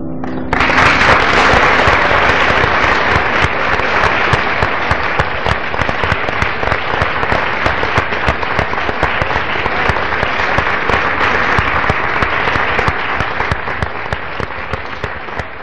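Large audience applauding: dense clapping breaks out about half a second in as the last sung note ends, then slowly fades near the end.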